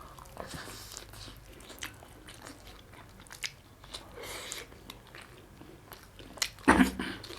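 A person chewing and biting food close to the microphone, with wet mouth smacks and small crunchy clicks, and a louder burst near the end.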